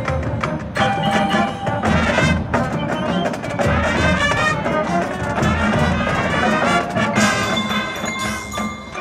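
High school marching band playing its field show music, with brass over drums and percussion.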